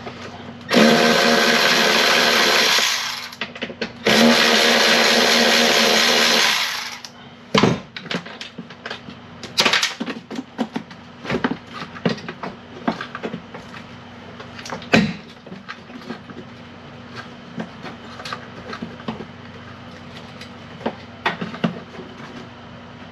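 Cordless power tool run twice, about two seconds each, backing out bolts holding a wiring harness module behind the dashboard. Scattered clicks and knocks follow as the bolts and parts are handled.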